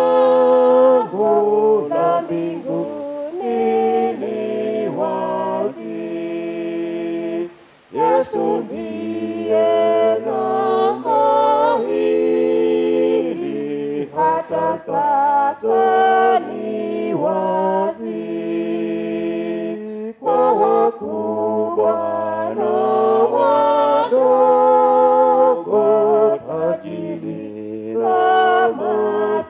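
A small church choir of four mixed voices, two women and two men, singing a hymn a cappella into microphones, with a brief break between phrases about seven and a half seconds in.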